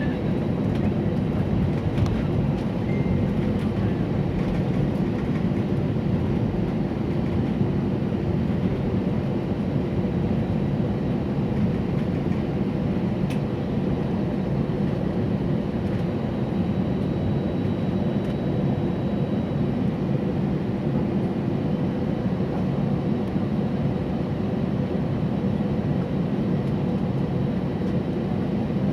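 Steady low rumble inside the cabin of an Airbus A320 taxiing after landing, from its engines at idle and the cabin air. The level holds constant, with no rise or fall.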